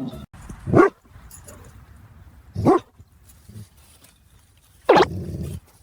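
A dog barking three times, single barks about two seconds apart.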